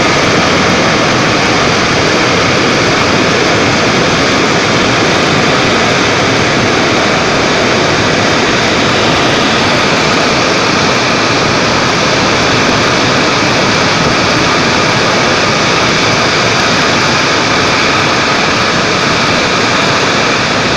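Cloudburst debris flow: muddy water and rock pouring down a cliff face into a swollen river, a loud, steady rushing noise.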